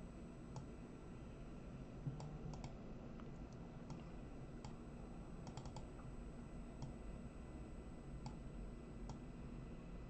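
Computer mouse clicking at irregular intervals, about a dozen faint, sharp clicks, some in quick pairs or threes, as photos are selected, dragged and resized on screen. A low steady hum runs underneath.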